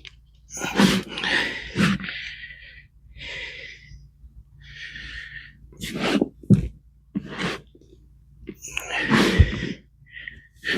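Potting compost in a pot being sifted through to pick out small potatoes: irregular rustling, crunching and scraping of soil, in short uneven bursts.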